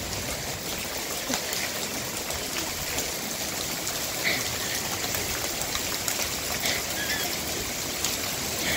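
Heavy rain falling steadily, a constant hiss made of many small drop impacts.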